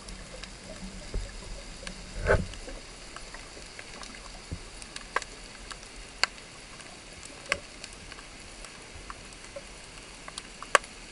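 Underwater sound picked up by a handheld camera: a steady hiss with scattered sharp clicks and ticks every second or two, and one louder, longer noise about two seconds in.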